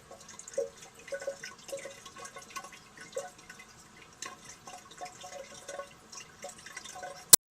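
Water dripping and splashing irregularly in a china toilet bowl as it is rinsed out. A single sharp click near the end, after which the sound cuts off.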